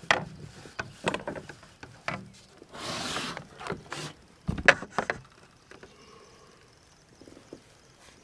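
Knocks, taps and rustling from handling a caught bass and a measuring board in a fishing kayak, with a short hiss about three seconds in and the loudest knock about four and a half seconds in. The handling noise dies down after about five seconds.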